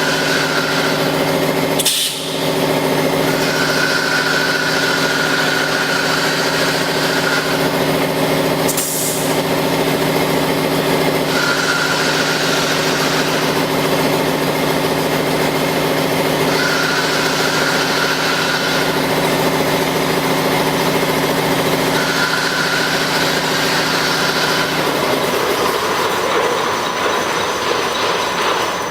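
Automatic spiral fan guard looping and welding machine running: a steady machine hum with a hissing whine that comes and goes every five or six seconds, and two sharp knocks early on. About 25 seconds in, the hum stops and a rougher mechanical rattle carries on.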